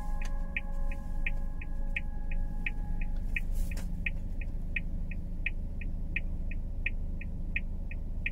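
A car's turn-signal indicator clicking in a steady tick-tock, about three clicks a second, over the low hum of the idling engine, heard from inside the cabin of a Suzuki Spacia.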